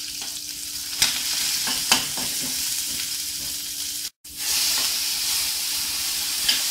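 Chopped onion and tomato sizzling in hot oil in a kadai while a metal spatula stirs them, scraping the pan. Two sharp knocks of the spatula on the pan about one and two seconds in, and the sound breaks off for a moment just past the middle.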